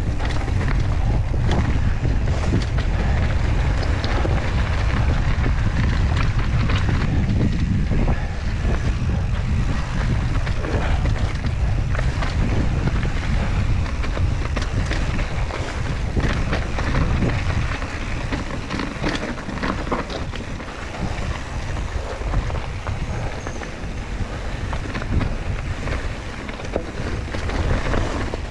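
Wind buffeting an action camera's microphone on a mountain-bike descent, over the hiss of knobby tyres on dry, rocky dirt, with frequent sharp clicks and rattles from the bike and loose stones. The wind rumble eases about two-thirds of the way in.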